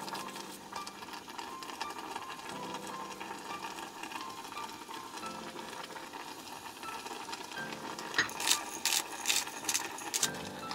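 Pepper grinder being twisted over a pot, a quick run of sharp crunching clicks near the end, over a faint steady background.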